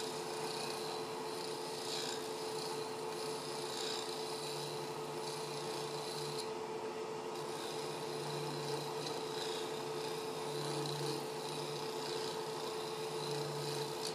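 Skew chisel held flat as a scraper against the face of a soft white maple box lid spinning on a wood lathe: a hissing scrape that swells and fades in passes as the tool is drawn across, over the steady hum of the lathe.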